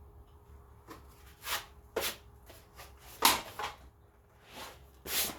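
Handling noise at a toolbox: about five short rustles and scrapes, some starting sharply, as tools and parts are moved about.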